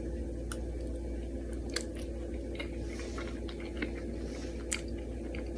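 A person chewing a mouthful of pasta: faint, scattered short clicks from the mouth over a steady low hum.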